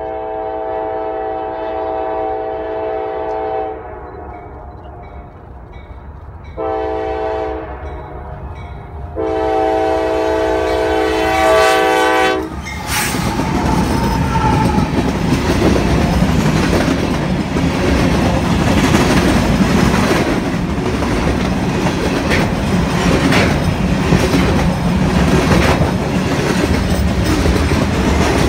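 Diesel freight locomotive's air horn sounding a chord in three blasts: long, short, long. About thirteen seconds in the locomotive passes close by, and a string of hopper cars and boxcars rolls past with steady rhythmic wheel clatter.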